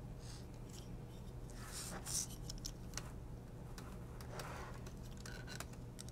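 Faint scratching, rustling and light clicks of small robot-car kit parts being handled, over a faint steady low hum.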